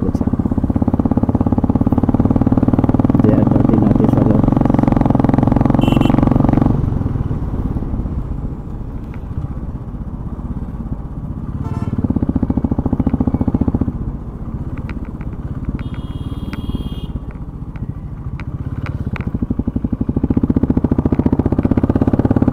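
Royal Enfield Bullet Classic 350's single-cylinder engine running while riding through town traffic, pulling louder under throttle for the first seven seconds, again briefly around twelve seconds and building up again near the end, easing off in between. A brief high-pitched beep about sixteen seconds in.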